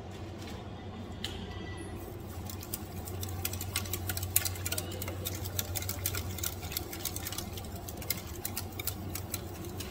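Wire whisk clicking and scraping against the inside of a stainless steel saucepan while whisking curd with spices for raita. The rapid, irregular ticks begin about two seconds in, over a steady low hum.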